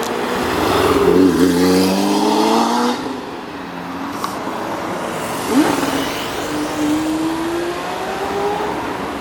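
Lamborghini and Ferrari supercar exhausts revving and accelerating away one after another, engine pitch rising as each car pulls out. The loudest stretch is in the first three seconds, and another car pulls away from about halfway through.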